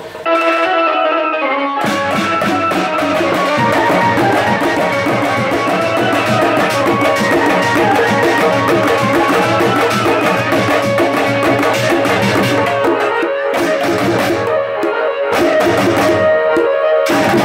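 Marfa band playing. A melody sounds alone at first, then about two seconds in the barrel drums, frame drums and a struck steel can come in together in a fast, dense beat under the melody. Near the end the drumming breaks off briefly a few times.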